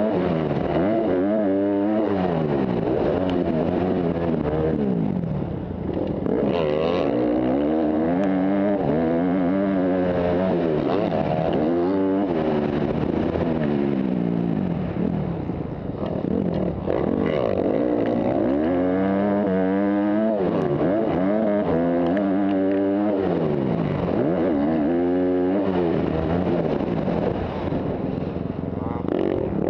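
Motocross dirt bike engine ridden hard, its pitch climbing and dropping back again and again as the throttle is worked through the gears, with brief easings of the throttle about six and sixteen seconds in.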